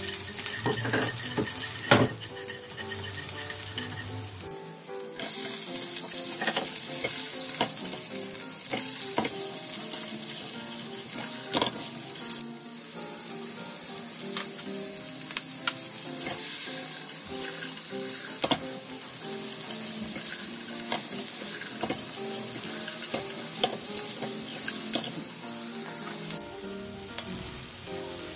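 Oil sizzling in a nonstick frying pan over high heat as garlic, scallion and bell peppers are stir-fried, with wooden chopsticks clicking against the pan. The sizzle grows louder about five seconds in and dies down near the end.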